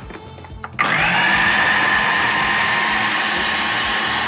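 Countertop food processor motor starting about a second in, quickly speeding up and then running with a steady high whine. The blade is cutting butter into flour and sugar to a fine breadcrumb texture for a dough.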